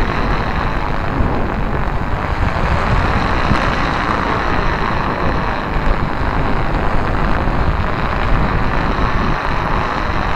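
Steady rushing roar of wind, with the roar of four large Firefox stunt kites (3.3 m wingspan) flying in it, and wind buffeting the microphone.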